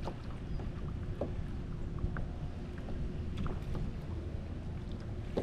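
Wind buffeting the microphone and choppy water lapping against a fishing kayak's hull, with a few light clicks and knocks.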